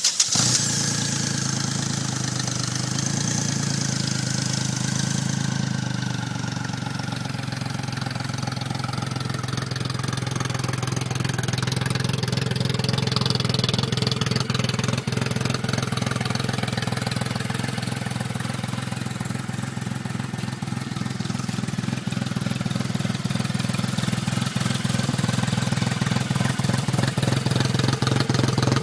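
Triumph Rocket III's 2.3-litre inline three-cylinder engine idling steadily through its chrome exhausts. The idle settles slightly lower about six seconds in.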